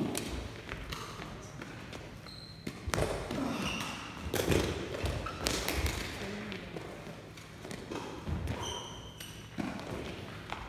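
A shuttlecock kicked once with a sharp hit right at the start. Then come scattered shoe squeaks, footsteps and a few low voices, echoing in a sports hall.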